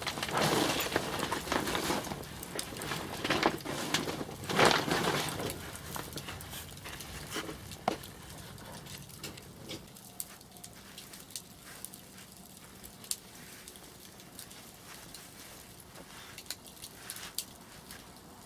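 Loud rustling and knocking in the first six seconds or so, then a wood fire crackling quietly with scattered sharp pops.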